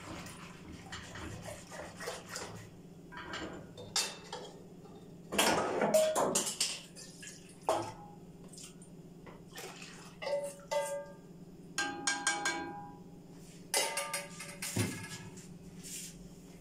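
A small metal cup and bowl clink and knock against a plastic mixing bowl of warm milk as it is stirred and ladled. The clinks come in irregular groups, several with a short metallic ring, over a steady low hum.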